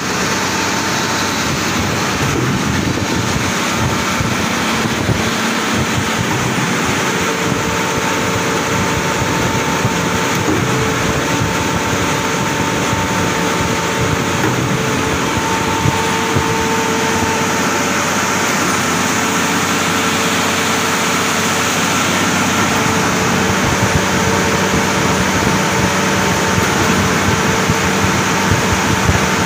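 Concrete trailer pump running: a loud, steady mechanical drone that goes on without a break.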